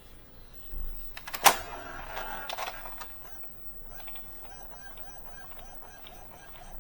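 Epson L120 inkjet printer printing a nozzle check page: a sharp click about a second and a half in, a brief whir, then the print head carriage shuttling with a steady run of regular ticks.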